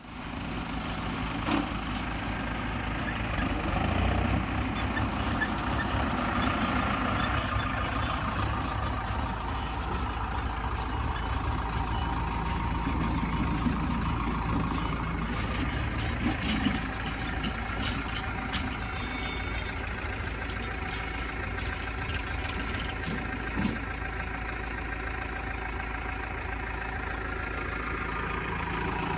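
Diesel engines of a JCB backhoe loader and a tractor running steadily, with a few short knocks now and then.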